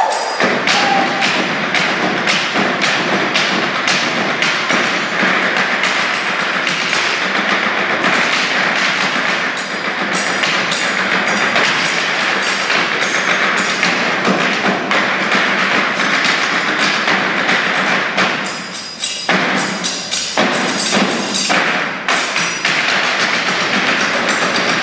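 Performers drumming on a wooden table with knives, cleavers and sticks in a stage percussion routine: a fast, dense rhythm of wooden knocks and thuds, with a brief break about nineteen seconds in.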